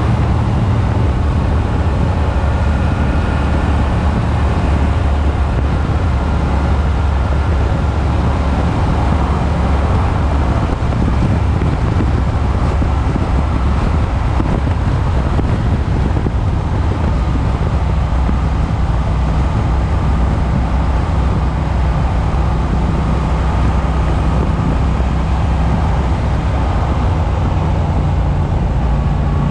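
Triumph motorcycle engine running at a steady cruise, with heavy wind noise on the rider's microphone.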